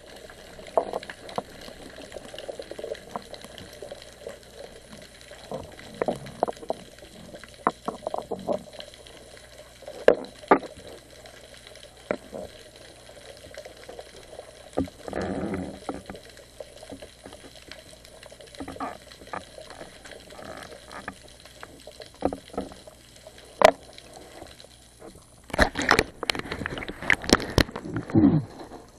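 Water sloshing and bubbling around an underwater camera, with scattered clicks and knocks. A longer rush of water comes about halfway through, and a cluster of louder knocks and splashes comes near the end.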